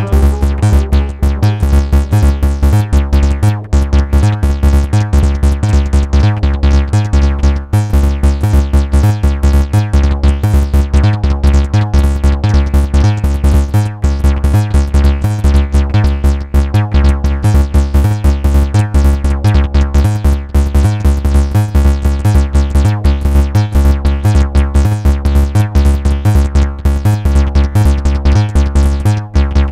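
Live electronic techno played on a modular synthesizer rig: a steady, repeating kick drum pulse under held synth tones.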